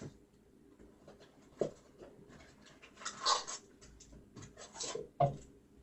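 Trading card packs being handled and opened: several short rustles of the wrappers and cards, and a couple of light taps on the table.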